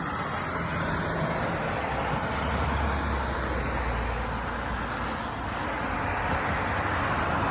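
Steady hiss of road traffic outdoors, with a deeper rumble swelling for a couple of seconds in the middle, like a vehicle going by.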